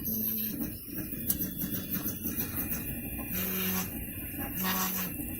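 Prusa i3 MK3 3D printer at work: its stepper motors hum in short steady tones as the head moves, over a constant fan hiss.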